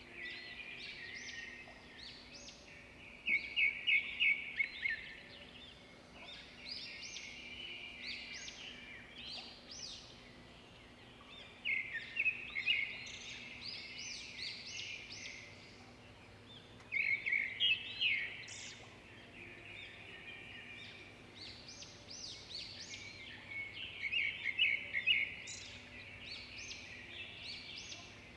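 Small birds chirping throughout, with louder bursts of rapid, high chirps about every six or seven seconds.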